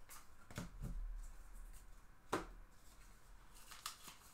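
A few faint taps and clicks of trading cards being handled and laid down on a tabletop, the sharpest a little over two seconds in.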